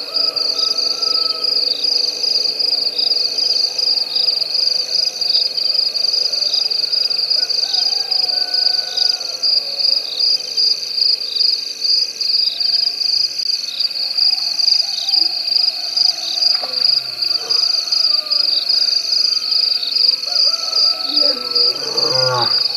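Dense, high-pitched night chorus of calling frogs at a waterhole, running steadily and pulsing about once a second. Near the end a short, lower call with a wavering, rising pitch cuts in over it.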